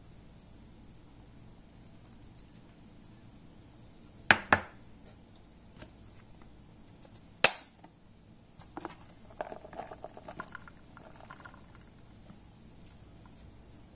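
Two sharp knocks, then one louder crack, followed by a couple of seconds of light scattered ticking as small white pieces land on a stainless steel frying pan.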